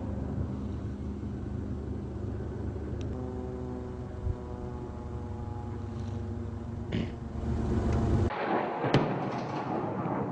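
Tracked armoured personnel carrier's engine running steadily with a low drone and a hum of even tones. Near the end the sound switches abruptly to a louder rumbling explosion, with a sharp crack about nine seconds in.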